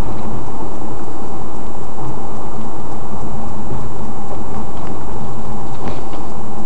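A car driving along a city street, heard from inside: a steady, loud rumble of road and engine noise.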